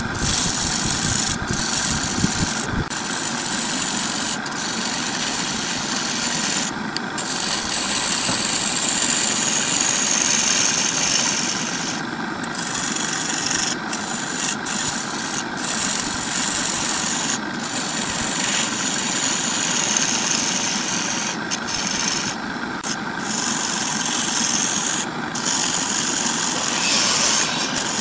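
Wood lathe running while a hand-held gouge cuts a spinning laminated red-and-yellow wood cylinder, a steady shaving hiss over the motor, broken several times by short pauses as the tool eases off the wood.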